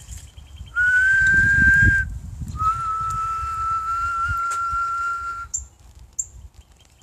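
A person whistling to call birds: two long, steady whistled notes, the first about a second long and rising slightly, the second held about three seconds at a slightly lower pitch.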